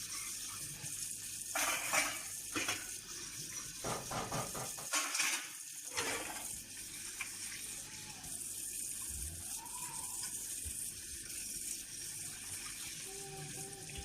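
Kitchen tap running into the sink as dishes are rinsed, with a few louder splashes and knocks about two, three and five seconds in.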